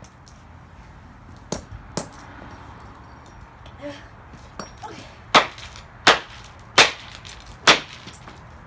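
Hammer blows striking a piece of a Dreamsky DS206 alarm clock radio on plywood: two lighter strikes, then four hard strikes in steady succession about two-thirds of a second apart near the end. The piece does not break under them.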